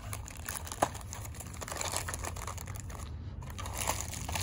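Clear plastic packaging of a fishing lure crinkling and crackling as it is handled and turned over, with one sharp click about a second in.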